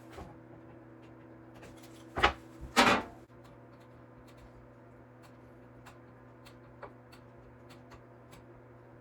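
Kitchen cabinet door closed twice in quick succession, two loud knocks about two seconds in, then a few faint clicks over a steady low hum.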